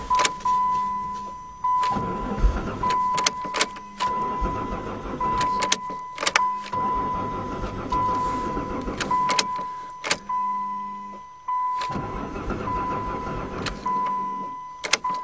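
1989 Dodge Caravan's starter cranking the engine in repeated tries of a few seconds each, with clicks as the key is turned, and the engine never catching. An electronic beep keeps repeating throughout. The fuel is very low, and the owner suspects the fuel pump is sucking air or the tank is too low to start.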